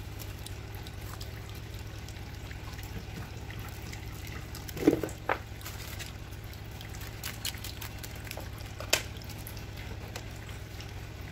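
Plastic cling wrap being handled and smoothed over a glass bowl: light crinkling with a few sharp clicks, the loudest about five seconds in and again about nine seconds in, over a steady low hum.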